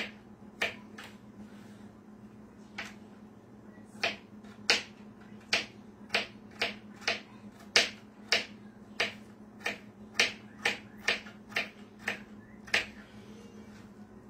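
Knife chopping green bell pepper on a plastic cutting board: sharp, uneven knocks about twice a second, with a gap of a couple of seconds near the start.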